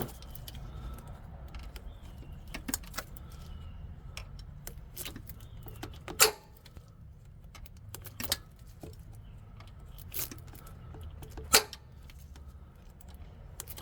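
Metal hand tools clicking and clinking irregularly while a freshly broken-free 12 mm nut is worked loose, with two sharper knocks about six and eleven and a half seconds in.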